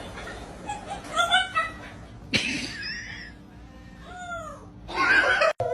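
Domestic cat meowing several times in short rising-then-falling calls, with a couple of brief loud noisy bursts between them.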